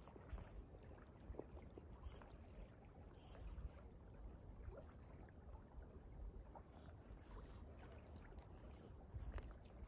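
Near silence: faint wind rumbling on the microphone in uneven gusts over a light wash of flowing river water.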